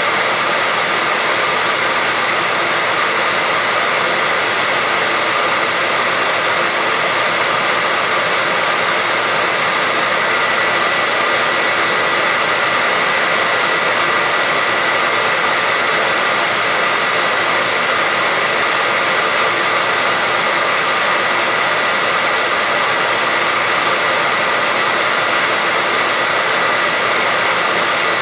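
Hair dryer blowing steadily, a loud even rush of air with a faint steady whine from its motor and fan.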